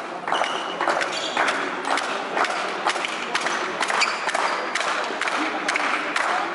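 Spectators in a large sports hall beating out a fast, slightly uneven rhythm of sharp claps or thumps, about three a second, each one echoing, over general crowd noise.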